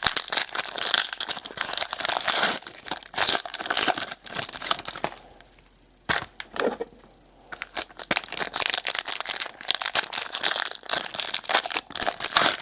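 Trading-card pack wrappers from a 2018 Prizm Racing box crinkling and tearing as packs are ripped open and the cards handled. There is a short lull about halfway through.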